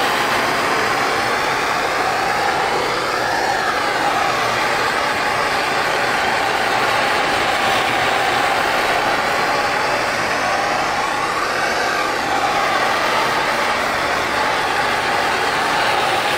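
Handheld canister torch flame burning with a steady, loud hiss. Its tone shifts slightly twice as the flame is swept along the top edge of freshly applied window tint to dry it.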